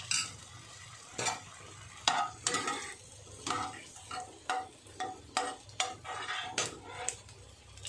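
Steel spoon stirring and scraping against a metal pan, short scrapes and taps about twice a second, some with a brief metallic ring, over a faint sizzle of frying. Most of the strokes are in an aluminium kadhai of hot oil with whole spices.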